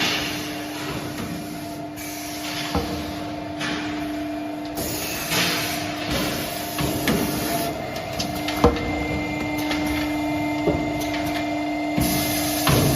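CNC servo-driven double-end chamfering machine running: a steady motor hum under irregular sharp clicks and knocks, with several stretches of hissing noise lasting a second or two.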